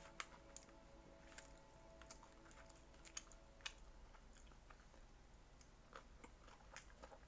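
Faint eating sounds: quiet chewing with several light, sharp clicks of chopsticks against the plastic food container.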